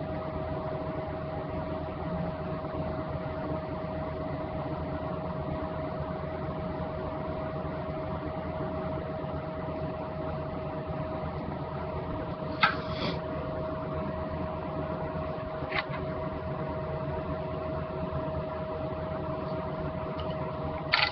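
Steady mechanical hum with one constant tone, like a running fan or appliance. Three brief clicks or taps come through it: one about two-thirds of the way in, one a few seconds later, and one at the very end.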